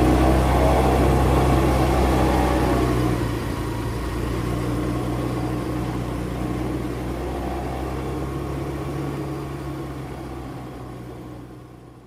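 Motor scooter engine running as the scooter pulls away. The sound drops about three seconds in and fades out near the end.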